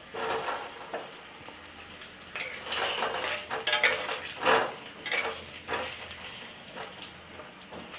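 Metal spatula scraping and knocking against a metal kadai as potato chunks are turned in hot oil, a string of scrapes and clatters with the loudest near the middle.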